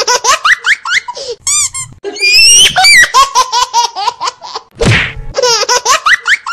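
A man laughing in rapid, high-pitched bursts, with a long rising squeal a little past two seconds in.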